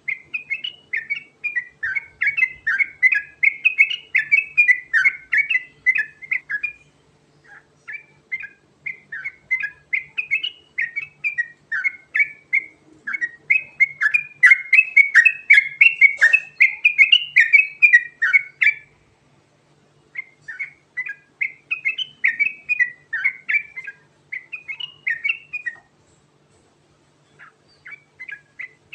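Yellow-vented bulbul (trucukan) singing a rolling song of rapid chirping, whistled notes. It comes in long runs of several seconds separated by brief pauses, over a faint steady low hum.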